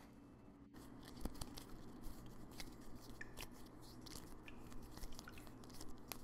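Faint, irregular crunching and crackling clicks over a low steady hum, beginning after a brief quieter moment.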